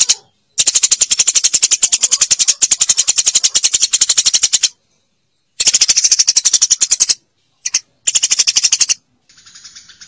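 Eurasian tree sparrow chattering: fast runs of sharp chirps, about eight a second, broken by short gaps, with a fainter, thinner run of chirps in the last second.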